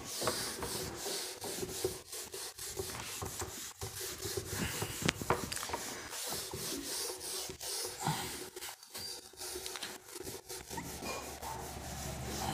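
Hand-writing strokes: a pen or marker scratching and rubbing on a writing surface in short, irregular strokes.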